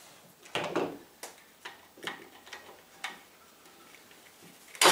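One-handed plastic bar clamps being released and slid off a glued wooden frame: a string of separate clicks and clacks, about one every half-second, the loudest just under a second in and another sharp one near the end.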